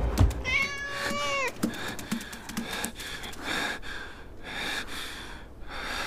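A cat meows once, a drawn-out call of about a second that bends down at its end, followed by a few soft taps.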